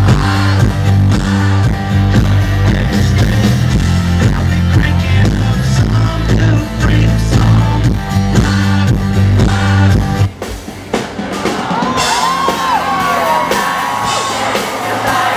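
Live country band playing loudly with heavy bass and drums, the music stopping about ten seconds in; then a crowd cheering, whooping and whistling.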